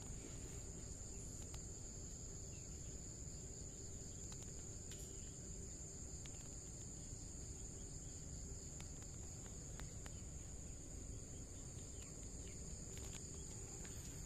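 Crickets singing in the garden: a faint, steady, high-pitched trill, with a few soft clicks.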